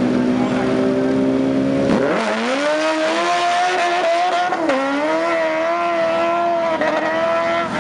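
Sport motorcycle engines held at high revs on the start line. About two seconds in, one bike launches and its engine note climbs steeply through the gears, dipping once at a gear change before rising again as it accelerates away down the drag strip.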